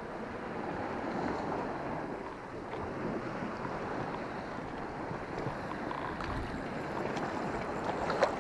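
Small sea waves washing over a flat rocky shore: a steady surf hiss.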